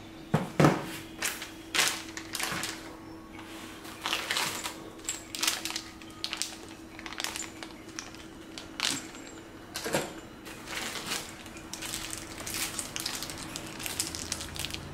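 Clear plastic zip-lock bags crinkling and rustling in irregular bursts as they are handled, with a couple of louder knocks, one just after the start and one about ten seconds in. A faint steady hum lies underneath.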